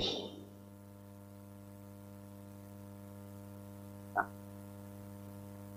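Steady low electrical mains hum in the recording, with a fixed pitch and overtones and no other sound, apart from one short spoken word about four seconds in.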